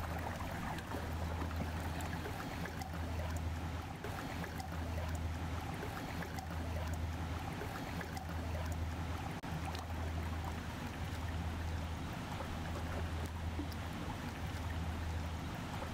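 Steady low drone of a passing inland cargo ship's diesel engine, with water washing over it.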